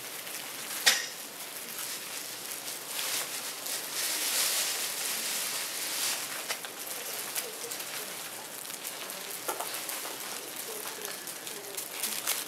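A plastic bag of beads being handled, crinkling and rustling irregularly with small ticks, and one sharper click about a second in.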